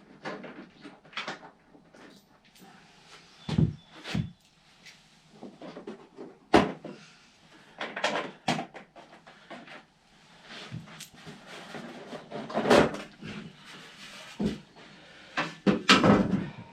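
Irregular knocks and clacks of hard objects being handled, a few sharp ones standing out among lighter rattles.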